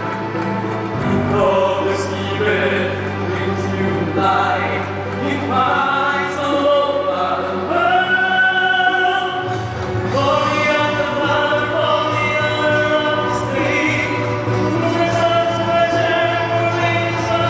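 A choir singing a gospel hymn over an amplified accompaniment with a steady bass line, the sung notes held long and changing as the song moves on.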